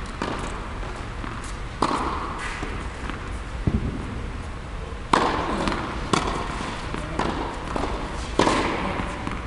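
Tennis ball struck by rackets and bouncing on the court during a rally: sharp pops, about four strong ones spaced one to three seconds apart, each echoing in the large indoor tennis hall.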